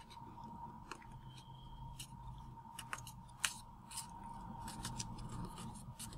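Faint crinkling and crisp little ticks of a sheet of origami paper being folded and creased under the fingers, with the sharpest tick about three and a half seconds in.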